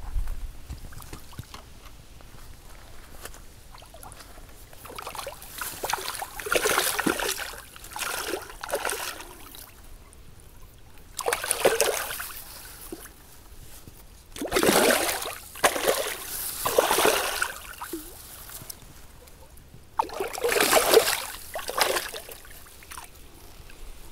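Hooked silver carp thrashing and splashing at the water's surface in the shallows, in four separate bursts as it is drawn to the bank.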